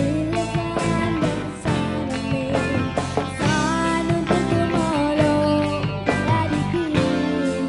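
Live rock band playing, with a young female lead vocalist singing over guitar, keyboard and drums.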